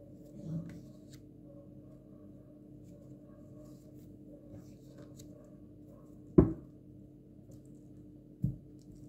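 Tarot cards being handled after a shuffle: soft rustles and light clicks over a steady low hum, then two sharp knocks on the table about two seconds apart, the first louder.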